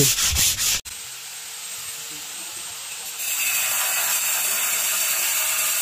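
Sandpaper rubbed by hand over a wall panel, sanding it smooth before painting. It starts in quick even back-and-forth strokes, then after a cut becomes a steadier scraping hiss that gets louder about three seconds in.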